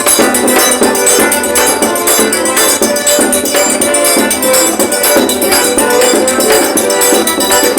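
Forró music from a trio band of accordion, zabumba drum and triangle, playing a steady dance beat.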